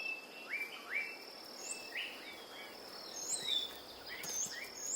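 Tropical forest ambience: a steady high insect drone under a run of short chirping call notes, each sweeping up and then dropping, repeated about once or twice a second.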